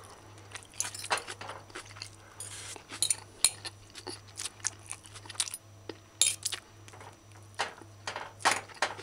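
Metal fork clinking and scraping against a ceramic plate while scooping up rice and chicken: irregular short clinks with a few brief scrapes.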